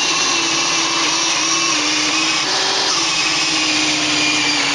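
Corded electric drill running steadily under load, its adjustable hole cutter grinding a round hole through a wooden cabinet panel. The motor pitch sags slightly at moments as the cutter bites.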